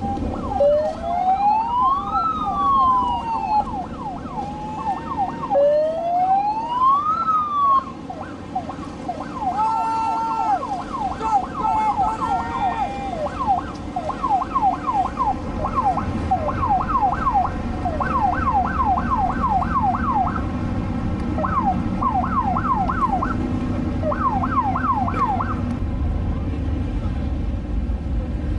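Electronic siren sounding over the water: two slow rising-and-falling wails, then a fast repeated yelp from about halfway through that stops a few seconds before the end, over a steady low rumble of wind and boat engines.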